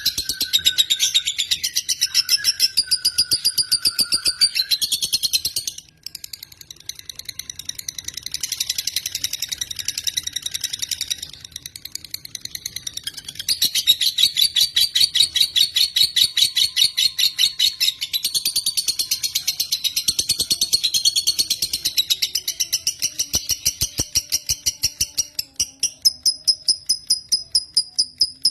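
Lovebird singing a long, rapid chattering trill of high-pitched notes. It breaks off briefly about six seconds in, is quieter around twelve seconds, then resumes loudly.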